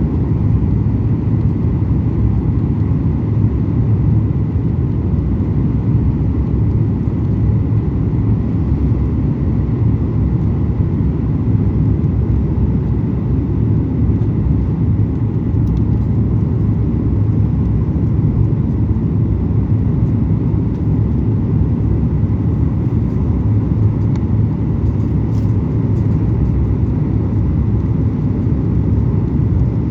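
Steady cabin noise of a Boeing 737 MAX 8-200 in flight: a low, even rumble of its CFM LEAP-1B engines and the airflow over the fuselage, unchanging throughout, heard from a passenger seat on the approach.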